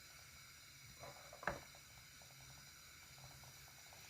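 Stew simmering in a pot on a low flame: faint bubbling pops several times a second, with one sharper click about one and a half seconds in.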